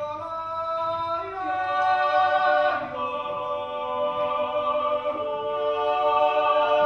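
Men's yodel choir singing a Zäuerli, the wordless Appenzell natural yodel, a cappella: several voices hold chords together and shift to new notes every second or two.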